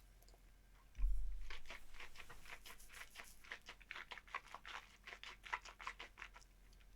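A person tasting a sip of 50% bourbon: a sudden sip about a second in, then about five seconds of wet clicks and smacks of the mouth and lips as the whiskey is worked around the palate.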